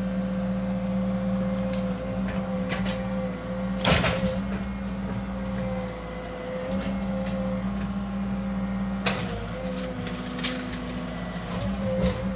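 Cat 306 mini excavator's diesel engine running steadily under a constant hydraulic whine while it works. A few sharp knocks cut through, the loudest about four seconds in and again about nine seconds in.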